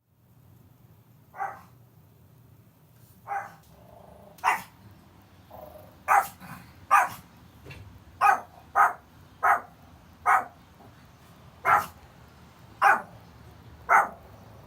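Puppy barking: about a dozen short, sharp barks at uneven intervals, roughly one a second.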